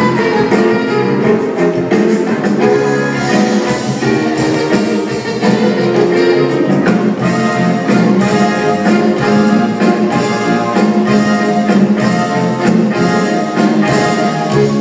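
Instrumental stretch of a stage-musical song: pit orchestra with brass to the fore over a steady beat, no voices singing.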